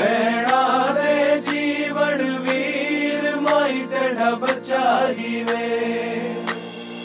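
Background music: a sung vocal line over a sustained drone, with a light beat about twice a second.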